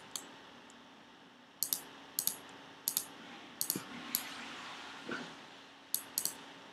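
Sharp clicks of a computer mouse and keyboard, several of them, mostly in quick pairs, over a faint steady hum.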